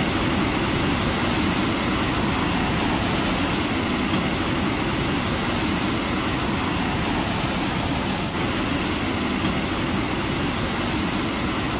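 Floodwater rushing through a street: a steady, even noise of fast, churning water.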